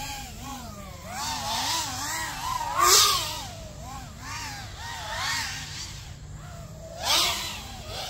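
Five33 Light Switch v2 FPV racing quadcopter, its 2207 2070kv brushless motors on 6S whining, the pitch rising and falling quickly with throttle. It passes close and loudest about three seconds in, and again near the end.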